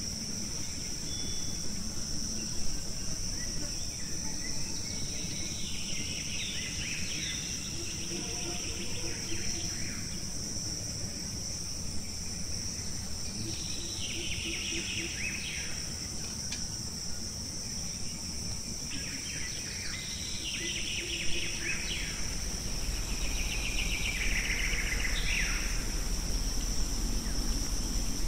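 Forest ambience: a steady, high-pitched insect drone, with a bird calling in short bouts of rapid notes about four times.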